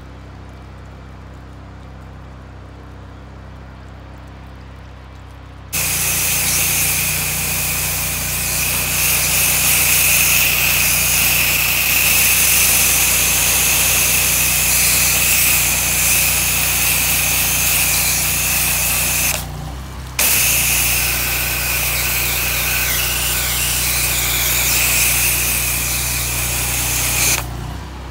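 Pressure washer in use: a steady low engine hum, then about six seconds in the gun is triggered and a loud, steady hiss of spray starts as the machine works under load. The spray cuts out briefly around twenty seconds, resumes, and stops shortly before the end.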